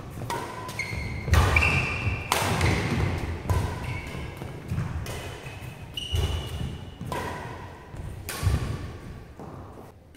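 Badminton rally: sharp cracks of rackets striking the shuttlecock again and again, with shoes squeaking briefly on the court mat and footsteps thudding.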